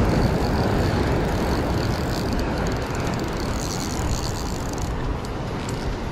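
Steady rushing noise of surf and wind along the rocky shoreline, with a faint high whine from a spinning reel being cranked through much of it.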